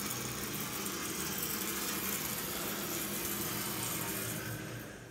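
Hydraulic elevator power unit and its new OMAR valve block working on a test run of the car: a steady mechanical hum with a hiss of oil flow, dying away near the end as the run stops.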